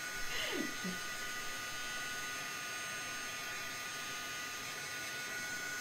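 Embossing heat tool blowing steadily, an even fan hiss with a faint high whine, drying wet ink splatter on paper tags. A short falling sound comes about half a second in.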